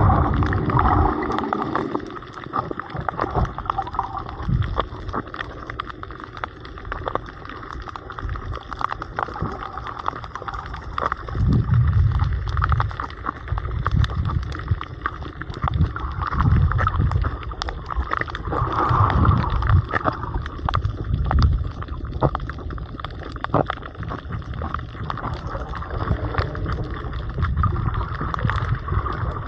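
Underwater sound picked up by a submerged camera: gurgling, sloshing water with many scattered sharp clicks and a deep rumble that swells every few seconds.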